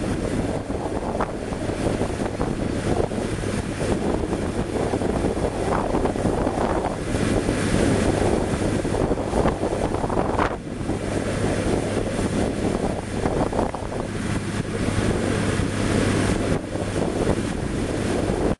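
Steady wind noise buffeting the microphone, over a shovel and hoe scraping through loose gravel aggregate in a pothole, with a few sharper scrapes.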